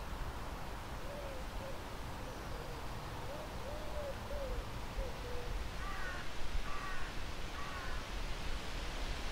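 Outdoor birdsong: a low, soft cooing call of repeated notes over about four seconds, then three short caws about a second apart near the end, over a steady hiss of outdoor ambience.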